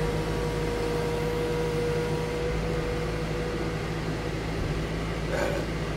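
Diesel engine of heavy earthmoving equipment running steadily at constant speed, with a thin steady whine that stops a little before halfway.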